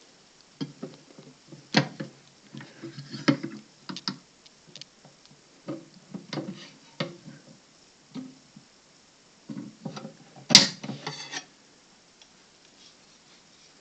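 Scattered, irregular knocks and clicks of objects being handled, with the loudest knock about ten and a half seconds in.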